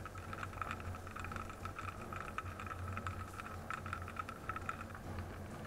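Muffled underwater sound picked up by a GoPro in its waterproof housing: a low steady hum with a scatter of faint crackling clicks.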